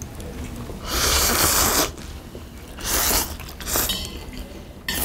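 Close-miked eating noises: a loud, noisy burst lasting about a second begins about a second in, followed by shorter bursts.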